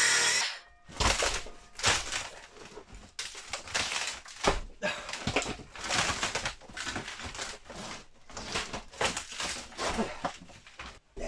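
A power tool stops about half a second in, then rotten wood is broken and pulled out of the roof structure by hand: irregular cracks, knocks and crunching, scraping rustles of splintering, decayed boards and debris.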